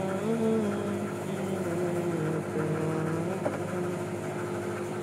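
Boat engine running steadily, its pitch shifting slightly a few times.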